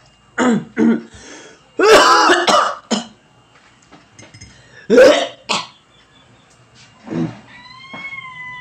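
A young man coughing and clearing his throat in a string of short, loud bursts, with faint spoon clinks in a ceramic mug midway.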